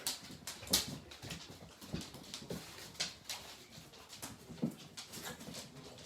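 Three-week-old German shepherd–husky mix puppies whimpering and grunting, with scattered short clicks and scuffles.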